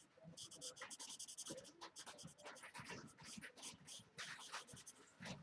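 Felt nib of a Spectrum Noir alcohol marker scratching faintly across cardstock in short colouring strokes, quick and even at first, then irregular.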